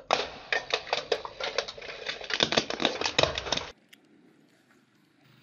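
Rapid, irregular clicking and cracking of small hollow plastic pumpkin toys on pavement beside a car tyre. It stops abruptly a little before four seconds, leaving faint background noise.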